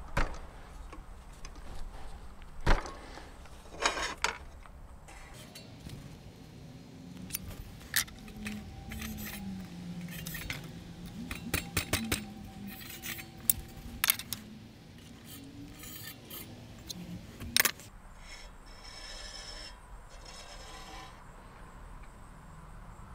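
Scattered sharp metallic clicks and light scraping as an aluminium speed square is set against a miter saw's blade and metal table while the blade is nudged into square. The saw motor is not running.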